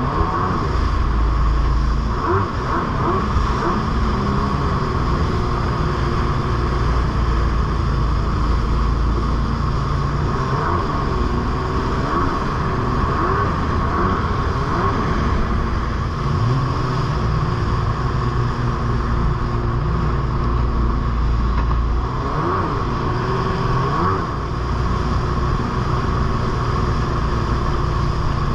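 Jet ski engine running at speed, its pitch rising and falling again and again as the throttle changes, over the hiss of water.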